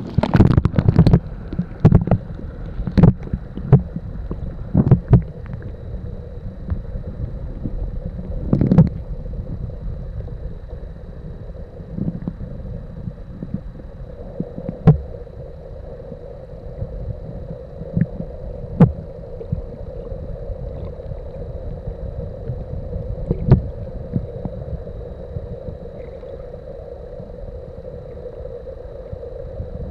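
Muffled underwater noise heard through a camera held under the sea: a steady low wash of moving water with irregular knocks and thumps, many in the first nine seconds, then a few sharp clicks spaced seconds apart. A faint steady high tone runs underneath.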